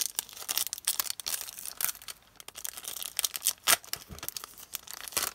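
Foil Yu-Gi-Oh booster pack wrapper being torn open and crinkled in the hands: an irregular crackling and tearing, with one sharper crackle a little past halfway.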